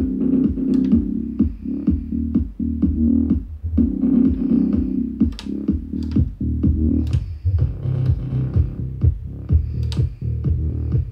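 Music with a steady beat and strong bass, playing through a vintage hi-fi system's loudspeakers with a graphic equalizer in the signal path.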